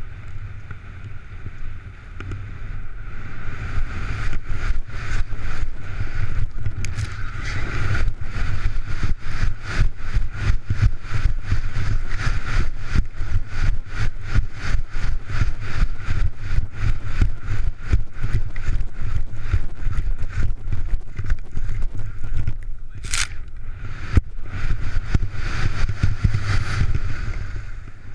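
Skis scraping and chattering over hard mogul snow in rapid, irregular hits, with wind buffeting a camera worn by the skier as a steady low rumble. A brief sharp hiss and short lull come about 23 seconds in.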